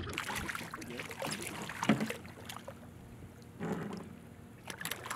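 Faint water sloshing beside a small boat's hull, with a few short splashes as a hooked snook is grabbed by hand at the surface; the sharpest comes about two seconds in.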